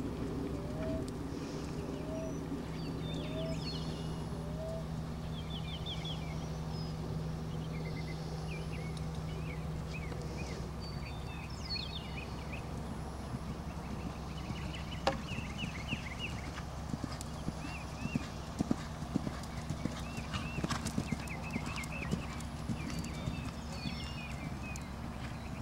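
Hoofbeats of a cantering Belgian Warmblood horse on sand arena footing, the knocks clearest in the second half. Birds chirp throughout, and a bird calls repeatedly in the first few seconds.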